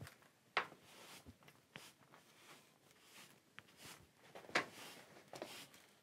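A broom brushing dust off a stone-and-mortar step: a few faint, short, irregular sweeping scrapes, the strongest about half a second in and again near the end.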